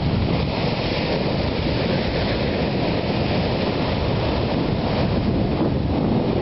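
Ocean surf breaking and washing up a sandy beach, a steady rushing hiss that swells about half a second in and eases near the end, with wind buffeting the microphone.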